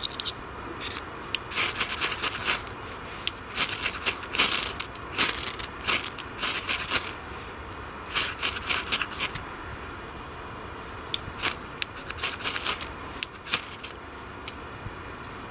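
A fire steel (ferro rod) scraped again and again with a striker, throwing sparks onto a pile of fine wood shavings to light them. The short scraping strikes come in quick runs, with a short pause about two-thirds of the way in.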